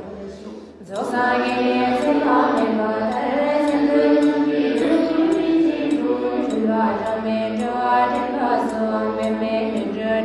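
A group of Buddhist nuns chanting a melodic prayer together, coming in about a second in over a held low note.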